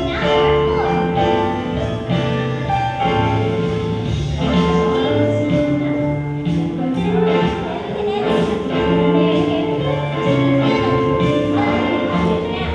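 Children's choir singing a gospel-style song over instrumental accompaniment.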